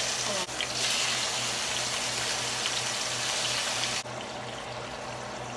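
Chicken pieces frying in hot olive oil in a pan, a loud steady sizzle that drops abruptly to a quieter sizzle about four seconds in.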